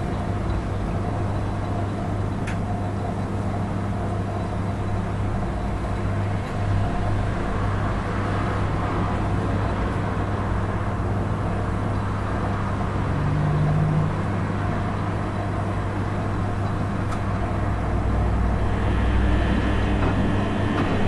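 Rex RL12X front-loading washing machine in the wash phase of its wool programme: the motor hums steadily while the drum turns and the wet wool load and water slosh inside.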